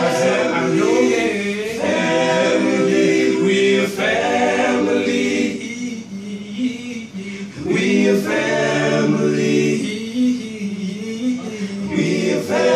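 A small group of male voices singing a cappella in close harmony, sustained chords over a low bass part, in phrases that soften briefly twice.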